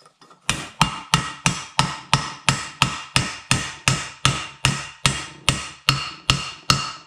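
Hammer repeatedly striking a steel mandrel, driving a valve seat insert into a UMZ Evotech 4216 cylinder head. There are about three blows a second, starting about half a second in, each ringing briefly.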